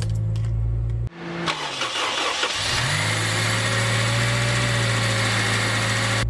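Acura RSX 2.0-litre four-cylinder engine being started: a short, rough cranking burst, then the engine catches about two and a half seconds in, rises and settles into a steady fast idle. This is the first successful start after the failed starter motor was replaced, ending the no-crank condition. Before that, a steady low hum cuts off abruptly about a second in.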